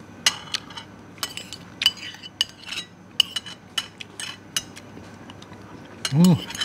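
Metal spoon and fork clinking and scraping on a ceramic plate, scooping up the last rice and soup. The quick clinks come thick over the first three and a half seconds and thin out after. A short vocal sound near the end is the loudest moment.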